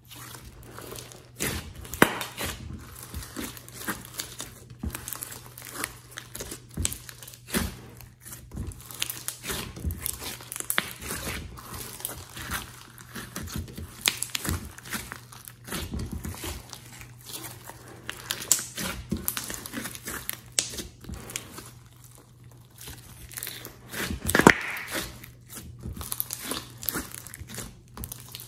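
Hands kneading and squeezing a large mass of glossy slime in a glass dish: irregular sticky crackling, clicking and squelching as it is folded and pressed, with a few louder squeezes.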